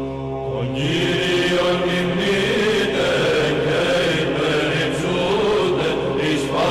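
Byzantine chant: voices sing a winding melody over a steady held drone note, the ison. A held phrase fades at the start, and a fuller sung phrase enters just under a second in.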